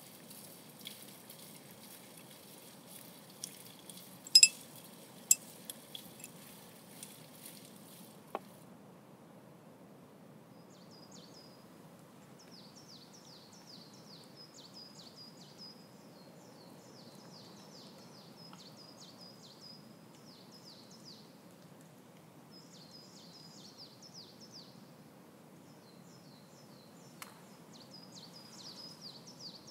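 A teaspoon clinking against glassware, a few sharp clinks with the loudest about four and five seconds in. From about ten seconds on, a small songbird sings rapid runs of short high chirps in several bouts over a faint steady background noise.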